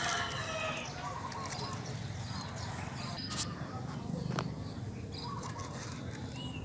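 Farmyard ambience: a rooster's crow trails off in the first second, then birds chirp now and then over a steady low background noise, with a couple of sharp clicks.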